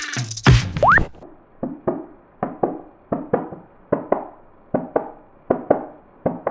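Heartbeat made as a Foley effect by hand: soft thuds in lub-dub pairs, about one pair every 0.8 s. In the first second, the end of electronic music with heavy beats and a rising whistle-like glide is heard.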